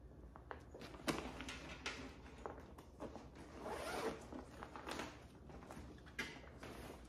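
Faint rustling and swishing as a microfiber fitted bed sheet and its packaging are handled and opened, a run of short, irregular scrapes with a longer swish about four seconds in.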